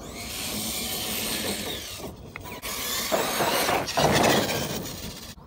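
ARRMA Kraton BLX 6S brushless RC monster truck driving over grass and dirt: a rattling drivetrain and motor whine that rise and fall with the throttle. There are two brief let-offs, about two seconds in and again near the end. The sound is loudest about four seconds in, as the truck passes close.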